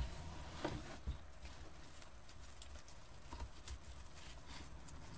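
Wire-edged ribbon rustling and crinkling as loops are pressed and gathered on a wooden bow-making board, with a few soft knocks of handling.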